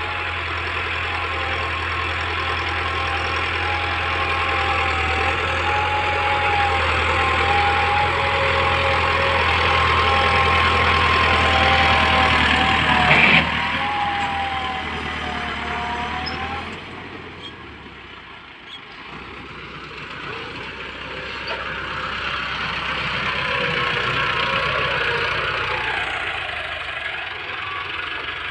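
Massey Ferguson 385 tractor's four-cylinder diesel engine running under load while pulling a tine cultivator through the soil. It grows louder as the tractor comes close, fades a little past the middle as it moves off, then builds again as it comes back. A brief thump about halfway through.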